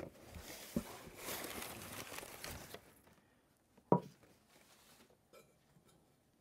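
Paper packing and a cotton drawstring bag rustling as a wrapped pan is pulled out of a cardboard box, with a light knock about a second in. About four seconds in, a single sharp knock as the bagged pan is set on a wooden counter.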